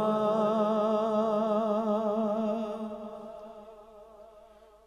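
Male naat reciter holding a long sung note with a slight waver in pitch, which fades away gradually over the last two seconds.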